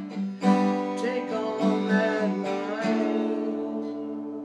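Acoustic guitar being strummed: a few chords struck, each left to ring, the last one fading out slowly.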